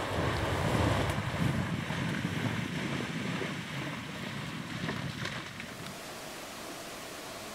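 Moose cow and calf running through shallow water, a rush of splashing water. It dies down about five and a half seconds in to a steady faint hiss.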